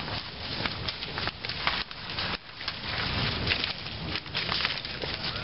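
Branches and brush being handled, cracking and snapping in irregular sharp cracks over a continuous crackle.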